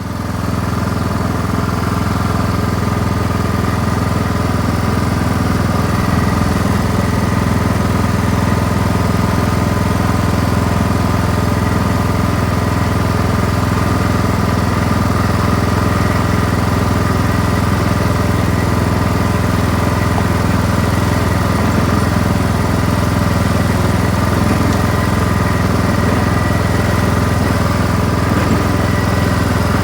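An engine running steadily at constant speed, an even, unchanging hum with no revving.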